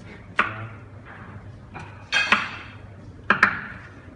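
A knife striking a wooden cutting board as meat is sliced: a few sharp knocks with a brief ring. The later knocks come in quick pairs.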